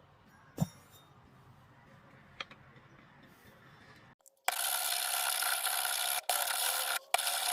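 Quiet for the first half with two faint clicks, then a loud, steady rubbing or grinding noise of a tool working the axe begins about four and a half seconds in. It breaks off briefly twice near the end.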